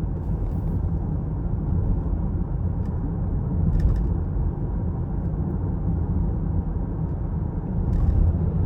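Steady low engine and road rumble heard inside the cabin of a 2018 Chevy Equinox driving at light throttle, its 1.5L turbocharged four-cylinder running okay for now.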